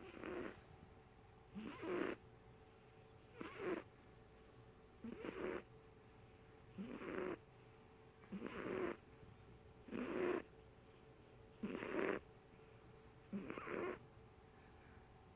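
A sleeping domestic cat snoring, about one snore every second and a half, each snore coming in two short parts.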